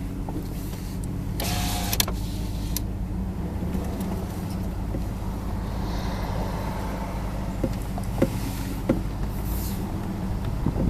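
Car cabin noise: a steady low drone of engine and road, with a brief high squeak about one and a half seconds in and a few light clicks near the end.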